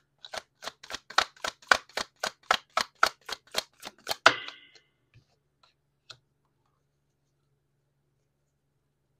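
A deck of tarot cards being shuffled by hand: a quick run of card slaps, about five a second, ending in a louder snap about four seconds in, followed by a few faint taps.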